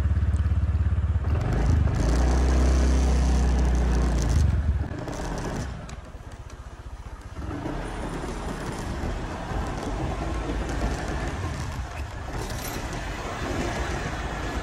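Motorbike engine running under way, loud for about the first five seconds, then dropping to quieter steady road and wind noise.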